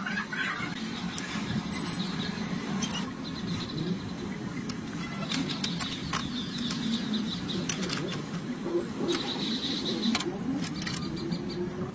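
Gas stove burners running with a steady low rush under a steel tray of liquid, after a lighter clicks near the start. Birds chirp in the background several times.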